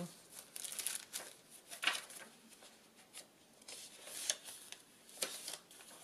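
Paper pages of a chunky handmade journal being turned and handled by hand: several short dry rustles and brushes of paper, the loudest about two seconds in.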